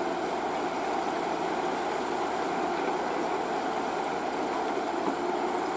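Tata Hitachi EX200 LC excavator's diesel engine running steadily while working.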